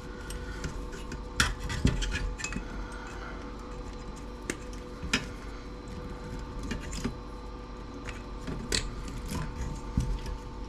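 Hand tools clicking and clinking against the metal parts and chassis of a small vintage CRT TV as it is dismantled, with irregular sharp knocks throughout over a faint steady hum.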